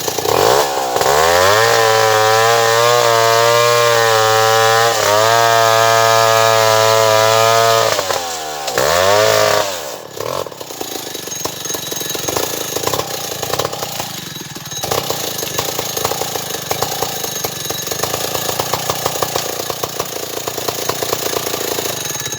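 Stihl 070 two-stroke chainsaw revved up to full throttle and held there for about seven seconds, dipping once briefly. It revs again for a moment, then drops back to an uneven idle.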